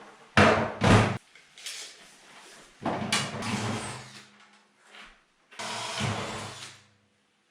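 Electric drill with an 1/8-inch bit running in short bursts, drilling new mounting holes: two quick pulses near the start, then two longer runs of about a second each.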